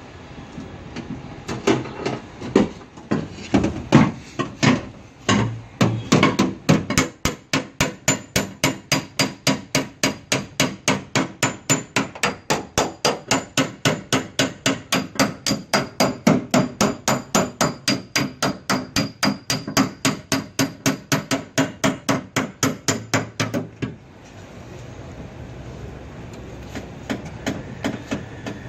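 Hammer beating the sheet metal of a car's rear door: several seconds of irregular heavy blows, then a steady fast run of about four blows a second that stops abruptly near the end.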